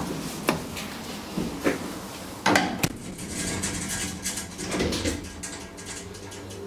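Sharp clicks and clunks from a DEVE hydraulic elevator's car buttons and door gear, the loudest about two and a half seconds in, followed by a steadier mechanical whir with a faint hum.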